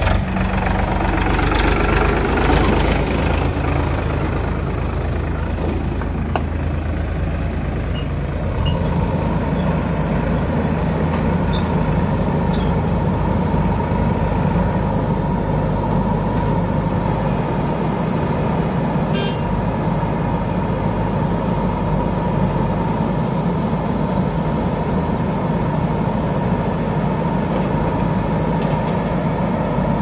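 Diesel engines of a Powertrac tractor and a JCB 3DX backhoe loader running. The sound is heavy and close at first; about eight seconds in it changes to a steady engine drone with a constant higher whine while the backhoe works.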